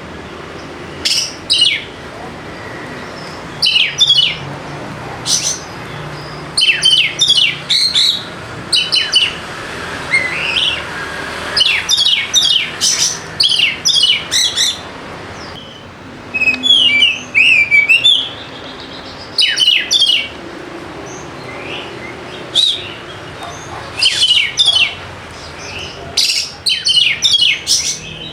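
Oriental magpie-robin (kacer) singing: short, loud phrases of rapid chirps and whistles every second or two, over a steady background hiss.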